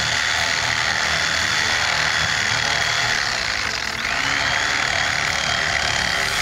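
Electric carving knife running steadily as it cuts seat cushion foam, its motor dipping briefly about four seconds in and picking back up.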